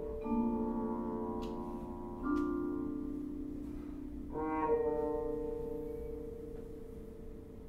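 Muted trombone playing three long held notes, each starting firmly and fading slowly, the last and highest sliding slightly up into pitch about four and a half seconds in, over ringing vibraphone tones, in slow contemporary chamber music.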